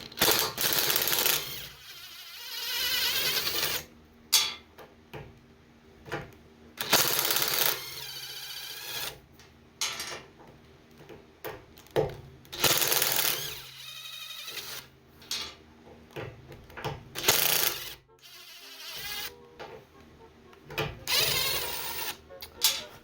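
Impact driver fitted with an agraffe tool hammering out piano agraffes, running in about six short bursts of rapid impacts with handling clicks between them.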